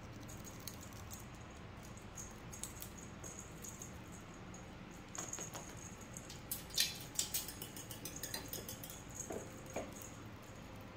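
A cat wand toy with a small bell jingling and clicking as cats bat and tug at it on a tiled floor, with a flurry of sharper clicks and clatter about seven seconds in.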